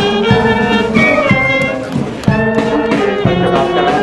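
Brass band music: held notes over a steady beat of about two knocks a second.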